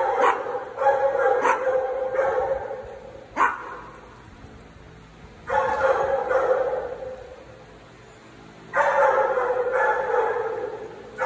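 A dog vocalising in long, wavering whines in three stretches of two to three seconds each, with a few short, sharp yips in the first few seconds.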